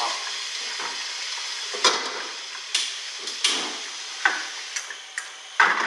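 Water sizzling in a hot wok on a gas flame as it is scrubbed out with a wok brush: a steady hiss, broken by several sharp knocks of the brush against the wok.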